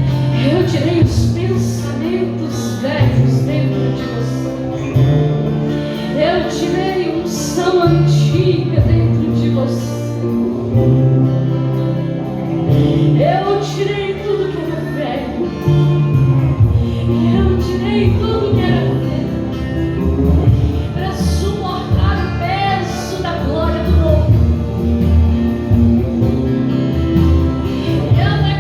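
Live church worship music: a band with sustained bass and keys under wordless or indistinct singing.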